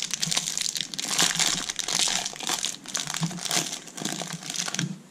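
Plastic wrapper of a Panini Mosaic football card pack being torn open and crinkled by hand, a dense run of crackles that eases off near the end.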